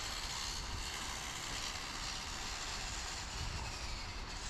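Steady outdoor background noise: an even hiss over a low rumble, with no distinct motor whine.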